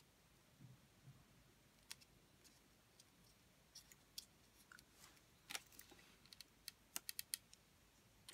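Near silence with faint scattered clicks and rustles of paper being handled and folded into a small cone, including a quick run of four clicks about seven seconds in.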